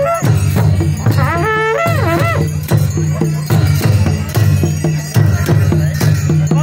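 Traditional Nepali folk band playing: barrel hand drums beat a fast, steady rhythm with sharp cymbal clashes, and a high, wavering melody line sounds over them about a second in.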